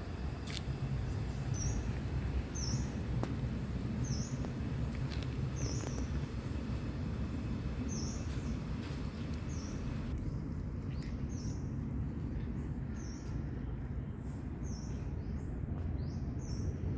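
Steady low outdoor background rumble, with a small bird chirping over and over, about once a second.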